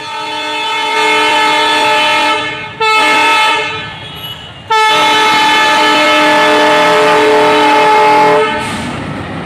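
Diesel locomotive's air horn sounding loud warning blasts: a long blast, a short one, then another long one of nearly four seconds, at a crowd blocking the level crossing.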